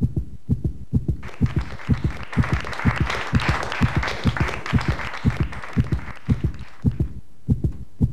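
A fast heartbeat, heard as a steady, rapid lub-dub of about two beats a second: the heart racing after exertion. From about a second in to about seven seconds, a rushing hiss swells and fades over it.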